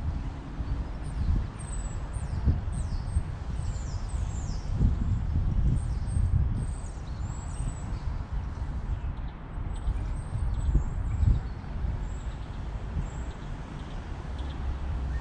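Small birds chirping with short, quick calls, over gusty wind buffeting the microphone in uneven low rumbles.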